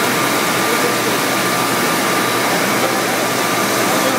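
Machinery of a twin-screw corn ring snack extrusion line running: a loud, steady mechanical hum and hiss with a few high whining tones held over it.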